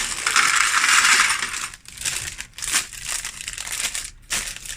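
Plastic Lego parts bags crinkling as they are handled: a loud continuous crinkle for the first second or so, then scattered short crackles.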